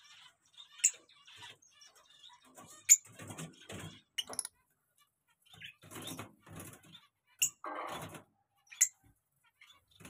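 Aviary cage birds chirping: four sharp, high chirps stand out about one, three, seven and a half and nine seconds in, over softer chattering, with bouts of rustling or wing-flapping between them.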